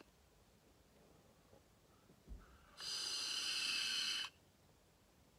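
A drag on a box-mod vape: a steady hiss of air drawn through the mouthpiece for about a second and a half, starting about halfway in and cutting off sharply. A small soft thump comes just before it.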